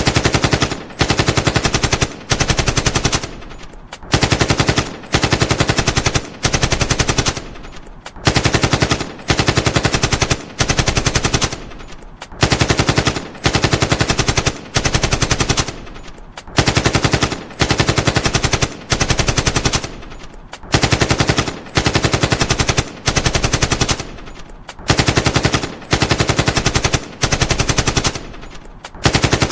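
AK-47 assault rifle firing on full auto in short bursts of rapid shots, each burst under a second long with brief pauses between. The same group of bursts repeats about every four seconds.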